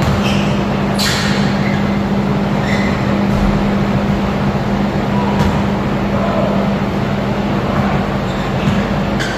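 Steady mechanical hum and rush of a large ventilation fan filling the gym. Over it come a few sharp knocks of a basketball on the hardwood and short squeaks of sneakers on the court.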